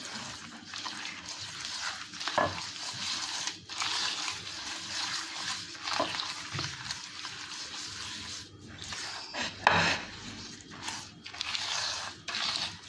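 A bare hand creaming butter, brown sugar and oil in a wide glazed clay bowl, the fingers rubbing and scraping the gritty paste around the bowl's surface. A few louder scrapes come at about 2.5, 6 and 10 seconds in.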